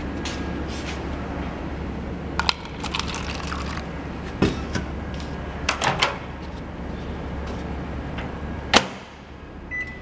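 GE countertop microwave oven handled: its door latch clicks open and the door clatters, then the door is shut with a sharp clack, the loudest sound. Near the end a keypad button gives one short beep. A steady low hum runs underneath.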